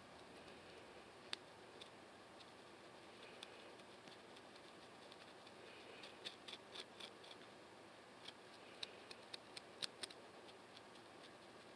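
Fingernails scratching a flaky, dandruff-covered scalp between braids: faint, crisp scratching clicks, one sharp tick early, then quick clusters in the middle and again towards the end.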